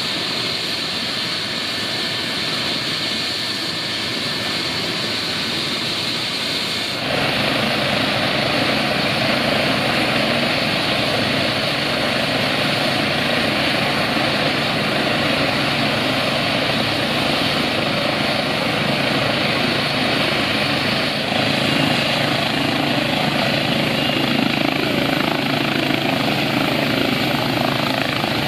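Eurocopter EC135 police helicopter running on the ground, its twin turbines and rotor turning steadily. About seven seconds in the sound abruptly gets louder and fuller, and a high whine rises slowly near the end as it powers up toward lift-off.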